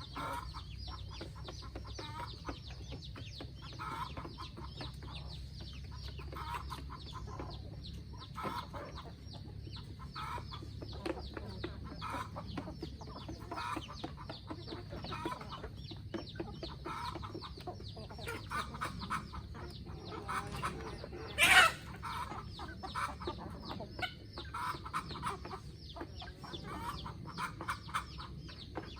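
Chickens clucking in short repeated bursts throughout. A single loud, brief sound rises above them about three-quarters of the way through.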